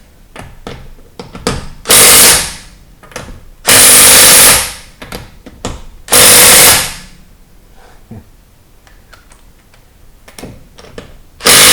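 Impact wrench running lug bolts onto a car wheel: three short loud bursts of rapid hammering, about a second or less each, with a fourth starting near the end and light clicks of handling between them.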